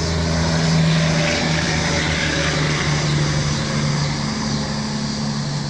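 A distant engine drones steadily with a low hum.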